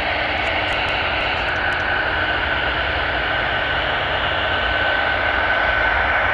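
F-35 Lightning II's Pratt & Whitney F135 turbofan at taxi power: a steady jet roar with a high whine that comes in about two seconds in and holds.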